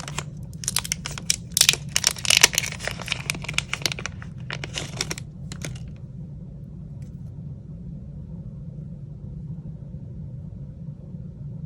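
Plastic packaging crinkling and rustling in quick, irregular crackles as a replacement charging-port board is handled, stopping about halfway through. A steady low hum runs underneath.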